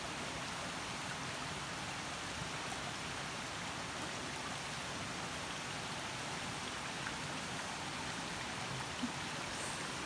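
Shallow rocky stream running: a steady, even rush of water over stones.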